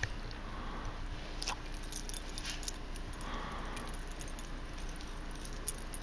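Metal tags on the collars of two Labrador retrievers jingling in scattered light clinks as the dogs bound through deep snow.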